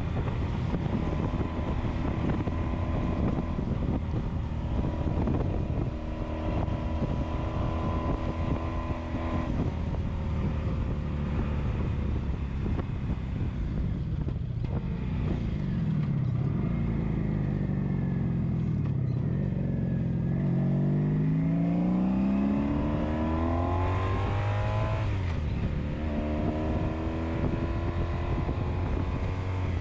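1983 Honda Sabre's V4 engine under way, with wind buffeting the microphone. About halfway through, the engine note falls as the bike slows. It then climbs steadily through a gear, drops sharply at a shift and climbs again near the end.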